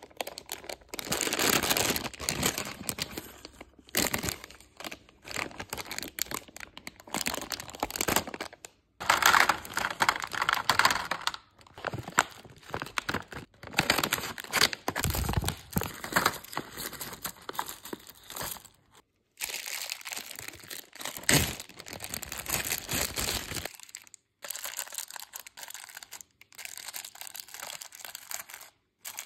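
Plastic candy bags and wrappers crinkling and rustling as they are handled, one bag cut open with scissors, and wrapped packs set into plastic organizer bins. The sound comes in repeated bursts with short silent gaps between them.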